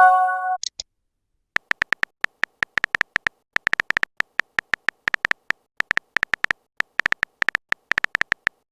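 Chat-app sound effects: a short electronic message chime at the start, then a long run of short typing clicks in uneven bursts, as of a message being typed out.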